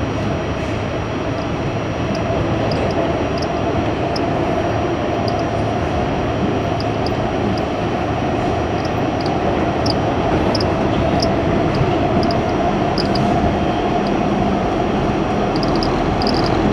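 Inside an R68 subway car running at speed through a tunnel and station: the steady running noise of steel wheels on rail and the car in motion, with scattered light ticks.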